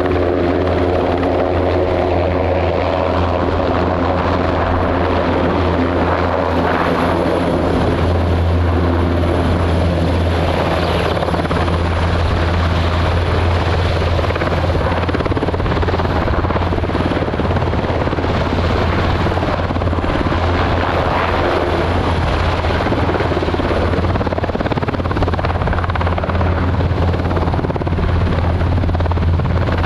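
NH90 helicopter hovering low and descending to land, its main rotor and twin turboshaft engines giving a loud, steady hum. A set of pitched tones fades out after the first few seconds.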